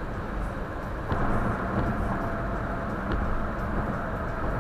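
Car driving on the road, heard from inside the cabin by the dashcam: a steady rush of tyre and road noise with a low engine hum, getting louder about a second in.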